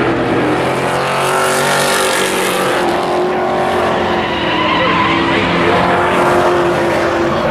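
Several Pro Truck class race trucks running at racing speed around an oval, their engine notes overlapping and shifting in pitch as they pass.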